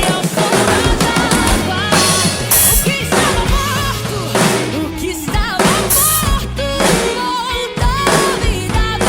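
Drum kit played along to a worship song track: bass drum and snare with rimshots under a melodic backing, and cymbal crashes about two and a half and six seconds in.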